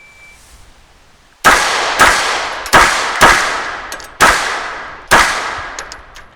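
A short shot-timer start beep, then six 9mm pistol shots from a Glock 34 Gen 5, fired in a timed drill at a steady pace about half a second to a second apart, each shot echoing away.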